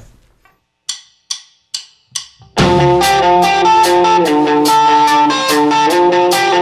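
Four evenly spaced clicks counting in, then a rock band starts together about two and a half seconds in: strummed electric guitar chords over a drum kit with regular cymbal hits.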